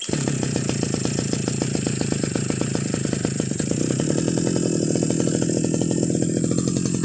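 Brush cutter engine catching as it is started, then running steadily with a rapid, even firing beat.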